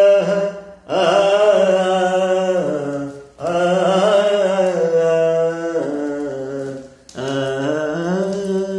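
A man's voice humming a song melody without words, in three long held phrases with short breaks between them.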